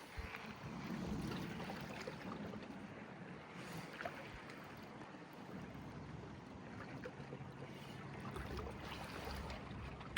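Faint water and wind noise on the microphone, a low steady rumble with a few small clicks.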